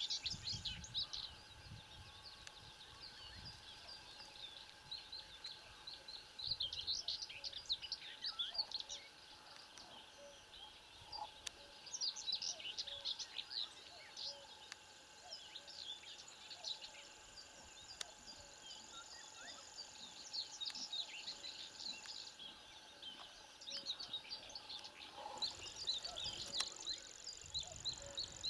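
Songbirds singing and chirping in many short, overlapping phrases, over a steady high insect trill that breaks off for a few seconds after the middle and then resumes.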